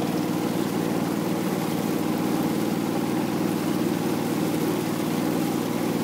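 Engine of a small river boat running steadily under way, a fast, even pulsing drone.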